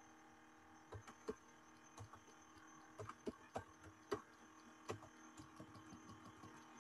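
Faint, irregular clicks of computer keyboard keys being typed, over a low steady hum.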